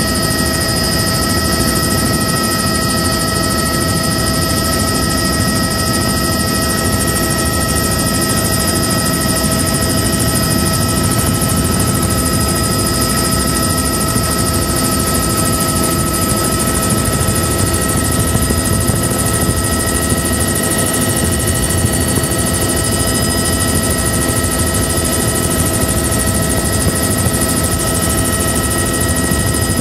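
Helicopter engine and rotor noise heard from inside the cabin: a loud, steady drone with several constant high tones riding on it, unchanging throughout.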